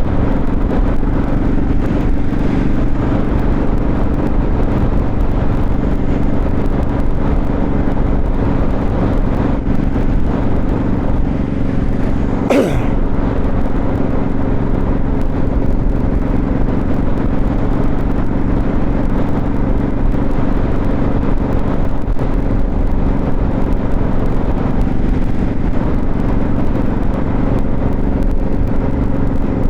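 Motorcycle engine running at a steady cruising pace, with road and wind noise on the rider's lavalier mic; a brief sharp sound about halfway through.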